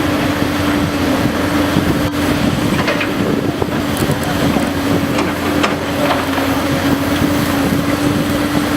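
Cat 385BL excavator running under load as it digs: steady diesel engine noise with a held whine, and several short knocks scattered through the digging.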